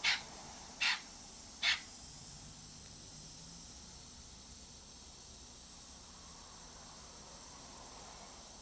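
A pet bird gives three short, sharp chirps in the first two seconds, over a steady hiss of water spray that carries on through the rest.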